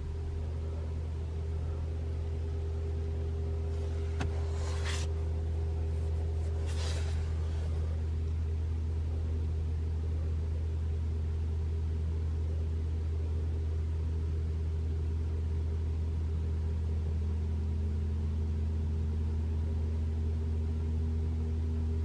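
A 2021 Toyota RAV4 Prime's heat pump compressor running in EV mode with the heater on: a steady low hum with a faint buzz, one tone rising a little in pitch about three-quarters of the way through. This is its normal buzzing and humming, without the loud heat pump noise the owner is trying to reproduce. Two short hissing sounds come about five and seven seconds in.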